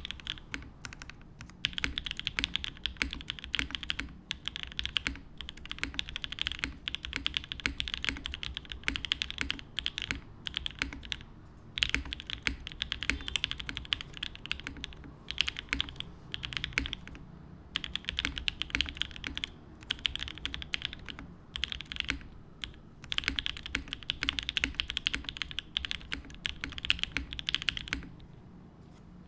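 Typing on a TGR 910 RE top-mount mechanical keyboard with a polypropylene plate, 43 Studio Opblack switches on 58 g springs lubed with Krytox 205g0, and GMK Striker keycaps. Runs of fast keystrokes come with brief pauses between them, and the typing stops shortly before the end.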